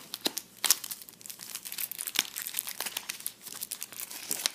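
Clear plastic wrapper of a cereal-box toy crinkling in many irregular sharp crackles as hands work it open.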